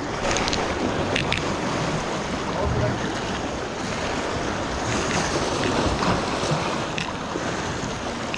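Surf washing and breaking against the granite rocks of a jetty, under steady wind noise on the microphone.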